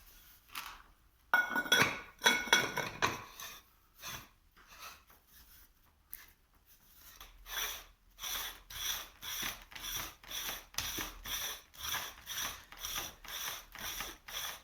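A mechanism ratcheting in regular short strokes, about two a second, from about eight seconds in, after a few loud metallic clattering scrapes about two seconds in.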